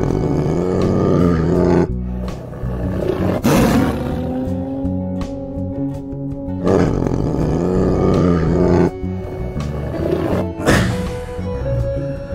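Tiger roaring in about four bursts over steady background music.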